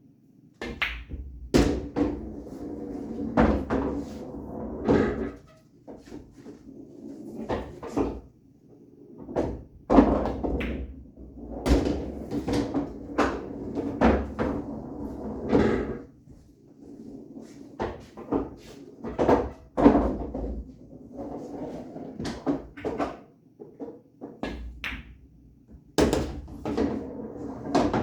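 Pool shots on an 8-foot bar-box table: the cue tip striking the cue ball, balls clacking together and dropping into pockets. Pocketed balls rumble as they roll through the table's ball return, in a string of sharp knocks spaced every second or two.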